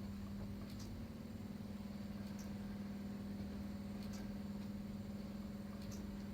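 Wooden rocking chair creaking in a slow, regular rhythm, a short high creak about every second and three quarters, over a steady low hum.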